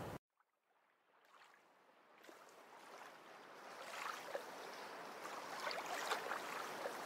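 About two seconds of near silence, then a soft rushing noise, like running water, fades in and slowly grows louder, with faint ticks in it.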